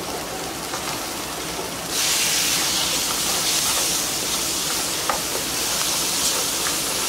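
Sofrito sizzling in hot oil in an aluminium pan. About two seconds in the sizzle jumps louder and stays loud as diced tomato goes into the pan, with a wooden spoon stirring through it.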